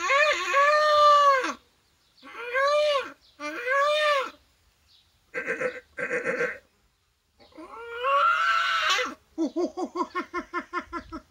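A man imitating animal calls with his own voice: several long wavering cries, two short harsher calls in the middle, then a fast stuttering run of short calls near the end.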